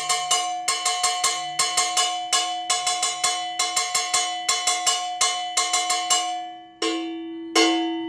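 Handmade low-profile (half-moon) cowbell with a thin, flat top, struck with a drumstick in a quick steady pattern of about five strokes a second. Near the end it slows to a few single strokes left to ring.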